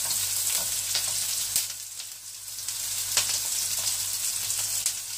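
Hot oil sizzling in a wok around cumin seeds, green chilies and curry leaves as sliced onions drop in, with three sharp clicks of the spatula against the steel plate it is scraping the onions off.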